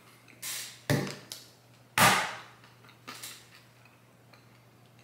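Corn nuts crunching as they are chewed in a mouthful of soft cookie: two sharp crunches about a second apart, then a softer one a second later.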